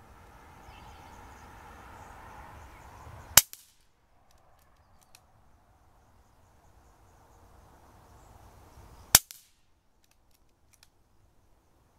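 Two shots from a KalibrGun Cricket .22 PCP air rifle, about six seconds apart, each a short sharp report followed a moment later by a fainter knock. A few faint clicks come between the shots.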